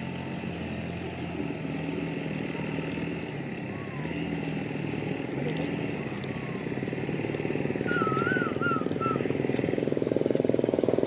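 A motor engine running steadily, its pitch shifting now and then, growing louder over the last few seconds. A bird gives a short warbling call about eight seconds in.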